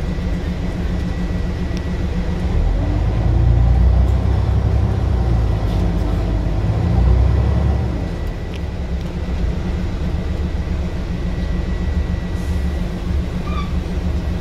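Scania double-decker bus engine heard from the upper deck, a heavy low thrash under load that swells twice and eases off after about eight seconds. A thin steady high whine runs alongside.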